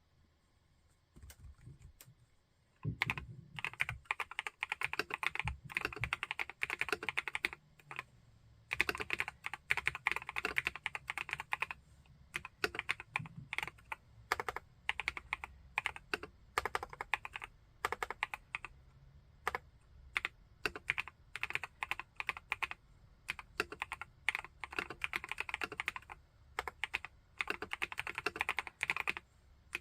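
Typing on an Epomaker Brick 87 tenkeyless mechanical keyboard with Epomaker Wisteria linear switches: a few light taps, then from about three seconds in fast runs of keystrokes in bursts of a few seconds with short pauses between them.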